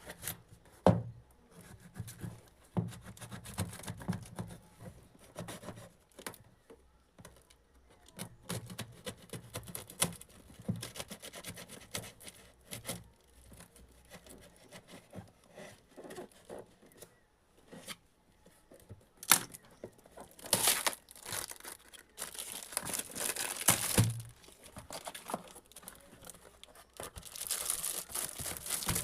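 Packaging being handled and torn open, with irregular crinkling rustles and taps and louder bursts of tearing and crackling about twenty seconds in and again near the end.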